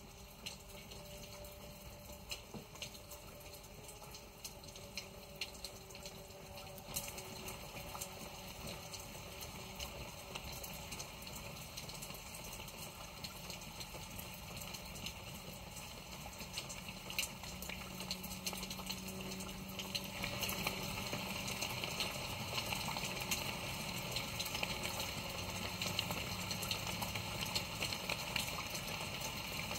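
Steady bubbling, running-water sound with scattered small clicks, slowly growing louder.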